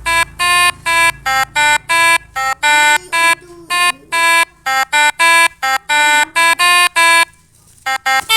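Basuri telolet bus horns, the multi-tone electric air horns, played note by note from a pianika-style keyboard, picking out a sholawat tune. The notes are short and long buzzy blasts with sharp starts and stops, two to three a second, with a brief pause near the end.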